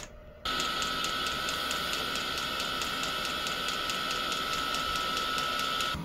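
Chinese diesel air heater starting up on a freshly replaced pulse fuel pump: a steady fan whine with the pump's regular ticking, coming on suddenly about half a second in.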